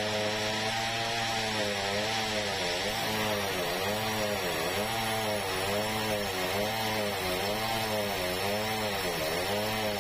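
Sawmill machinery running: an engine hum over a hiss, with the pitch dipping and recovering about every 0.8 seconds from a few seconds in, as if the engine were loading and unloading.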